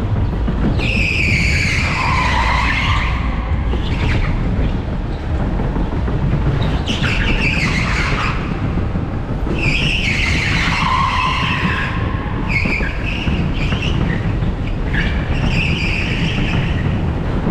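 Tyres of an electric rental go-kart squealing on smooth tarmac through a run of corners, about five times, some squeals falling in pitch, over a steady low rumble of the kart running.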